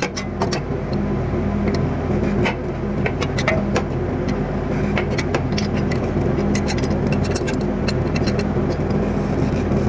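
Steady low hum of a running engine, with sharp metallic clicks and clinks scattered through it as an adjustable wrench works on the bolts of a fuel transfer pump.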